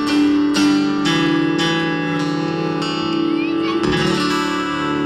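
Live band music: an acoustic guitar strummed in a steady rhythm, about two strokes a second, over sustained chords.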